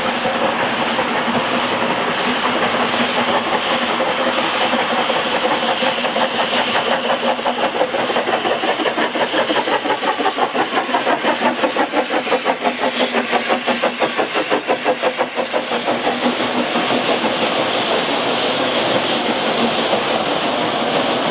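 Narrow-gauge steam locomotive working hard, its exhaust beating quickly and loudest in the middle as it passes close. The steady run of the coaches over the rails follows near the end.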